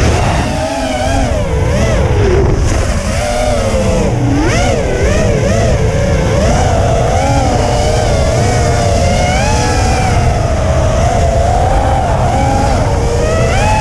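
Racing quadcopter's brushless motors and propellers whining, the pitch rising and falling constantly with the throttle through the turns. Heavy low wind rumble on the onboard camera's microphone underneath.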